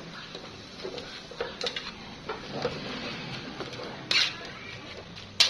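Metal spatula clinking and scraping against a wok while enoki mushrooms and minced meat are stirred, with scattered light clinks and a louder scrape about four seconds in and a sharp clack near the end.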